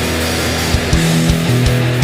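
Heavy rock music with electric guitar; a drum beat comes in a little under a second in.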